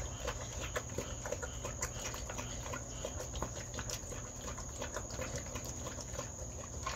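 A dog eating dry kibble from a stainless steel bowl: irregular crunching and clicking of chewing and kibble against the metal, several clicks a second.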